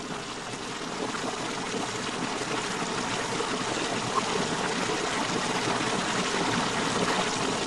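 Water rushing out of a powerful karst spring, a steady, even rush that grows a little louder over the first few seconds.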